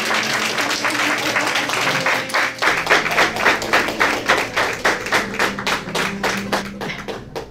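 Audience applauding, the dense clapping thinning out to scattered separate claps toward the end.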